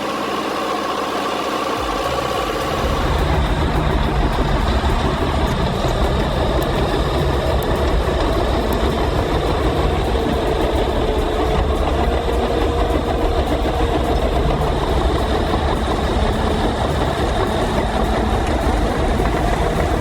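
Diesel engine of a Cat 527 tracked skidder (Cat 3304) running steadily, its low rumble getting heavier about two seconds in.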